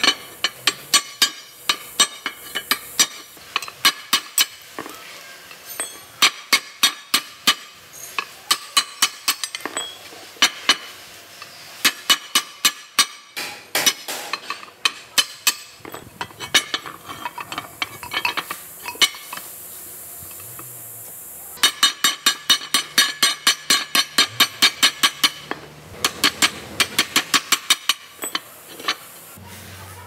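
Steel hammer blows on a truck drive shaft's flange yoke and universal-joint cross, each strike ringing metallically, coming in quick runs of about three or four a second with short pauses, as the worn U-joint's bearing caps are driven out and the joint is replaced.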